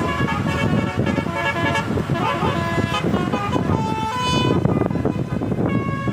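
Tour bus's Basuri telolet horn playing a tune of several held notes that step up and down in pitch, over vehicle noise.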